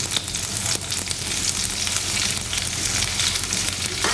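Tempering sizzling in hot sesame oil in a pan: mustard seeds, urad dal and fresh curry leaves frying, a steady hiss with frequent sharp crackles and pops.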